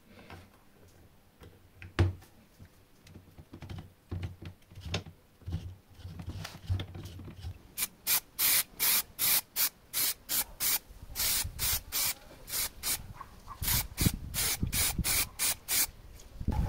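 Quick, regular abrasive rubbing strokes by hand on a small workpiece, about two to three a second, starting about eight seconds in. Before that come light handling clicks and one sharp knock about two seconds in.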